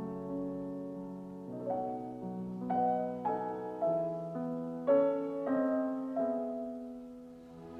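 Slow solo piano music, single notes and chords struck a few at a time and left to ring.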